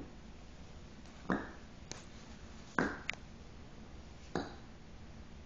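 Three sharp knocks on a coffee table about a second and a half apart, each with a short ringing tail, with fainter taps between them: a teething baby banging against the table's edge while trying to bite it.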